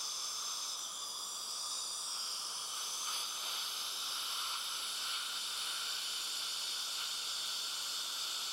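Steady hiss of a dental suction tube drawing air in the patient's mouth, unchanging throughout.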